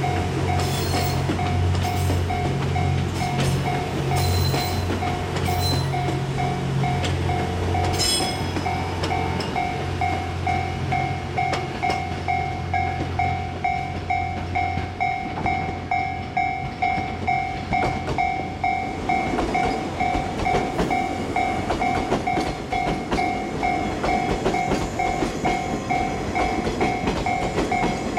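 Japanese level-crossing warning bell ringing in a steady, rapid two-tone pulse. Under it a passing 87-series TWILIGHT Mizukaze diesel-hybrid train is heard: a low engine hum with a few sharp clicks for the first third, then a rougher rumble of wheels on the rails from about two-thirds in.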